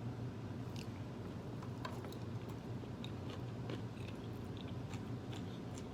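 Close-miked chewing and biting of Chinese takeout food, with small wet mouth clicks scattered throughout, over a low steady hum.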